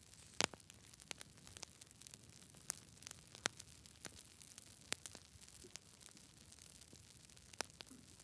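Wood fire crackling: a soft steady hiss broken by irregular sharp pops, the loudest about half a second in, with others at uneven gaps after it.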